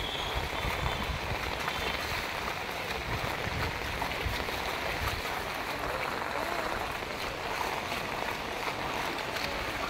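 Heavy monsoon rain and floodwater flowing over a street, a steady rushing wash of water, with the sloshing of feet wading through it. A low rumble comes and goes in the first few seconds.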